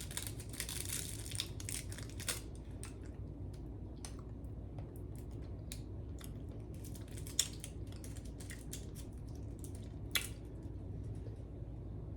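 Candy being chewed and crunched close to the microphone: scattered small clicks and crackles over a steady low hum, with two sharper clicks in the second half.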